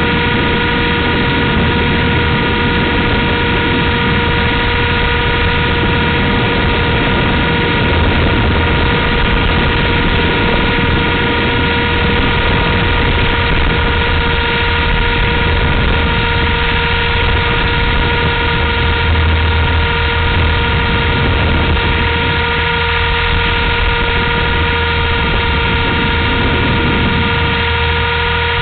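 Blade 230S electric RC helicopter in flight: the motor and rotors give a steady whine of several even tones over a low hum, holding one pitch throughout at constant head speed.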